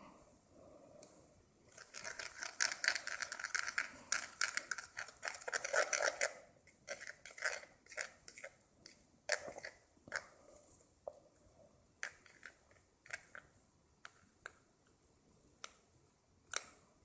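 Homemade dish soap slime being squished and worked by hand, with a dense crackling of small pops for about four seconds, then scattered single pops and clicks, one sharper near the end.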